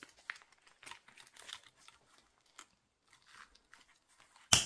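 Clear plastic pouches holding banknotes and coins crinkling softly as they are handled and fitted into a ring binder, then one sharp snap near the end as the binder's metal rings close.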